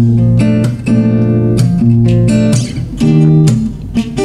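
Acoustic guitar strumming a song intro: a chord about every half second to second, each ringing on after the strum.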